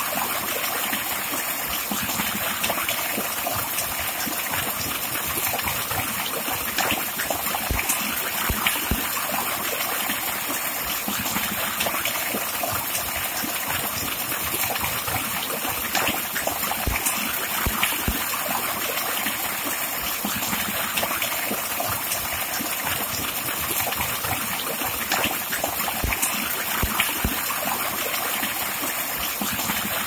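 Mini waterfall: a thick stream of water pouring steadily off a ledge into a shallow stone pool, a continuous splashing rush.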